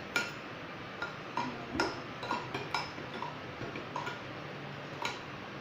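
A spoon clinking against a container while stirring clear slime glue that has just had boric acid activator added, about two small ringing clicks a second at an uneven pace.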